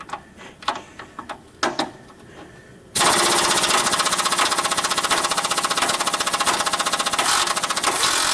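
A few light clicks, then about three seconds in an impact wrench starts hammering rapidly and steadily on a stuck bolt, which does not break loose.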